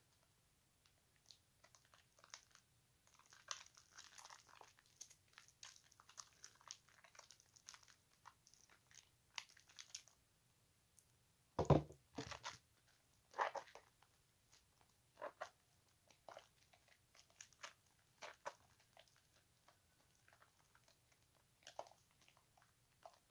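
Hands squeezing and rubbing a bar of soap in a basin of thick lather: soft wet squishes and crackles of foam, with a couple of louder squelches about halfway through.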